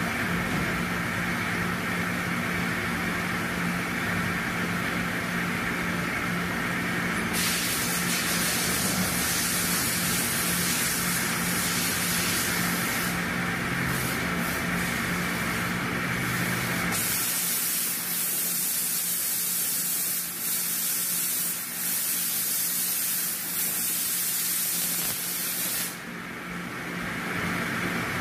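Machine-shop equipment running: a loud, steady hiss like spraying coolant or air over a steady machine hum, changing abruptly about a quarter of the way in, again a little past halfway, and near the end.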